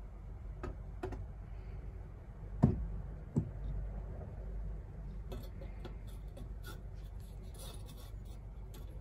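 Handling noises on a wooden table: a few light clicks, then two sharp knocks about two and a half and three and a half seconds in, the first the loudest. Light clicks and taps follow from about five seconds in, as a ceramic grill net with a wire frame is handled over a camping gas burner.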